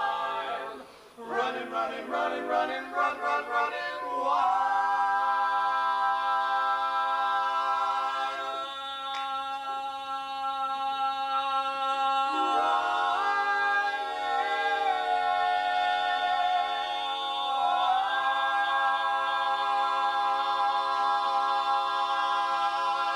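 A male barbershop quartet singing four-part a cappella harmony. It opens with a quick, choppy passage, then moves into long sustained chords and ends on one long held final chord.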